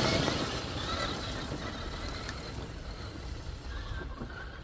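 Large-scale RC crawler truck driving along a dirt trail: its electric motor and drivetrain whir under the noise of the tyres. The sound fades over the first couple of seconds as the truck pulls away.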